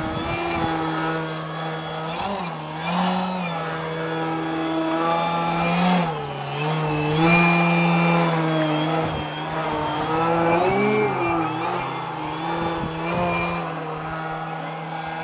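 Two 2-metre Sebart Su-29 radio-controlled aerobatic model planes flying, their engines and propellers droning steadily with the pitch repeatedly dipping and climbing as the throttle changes through the manoeuvres.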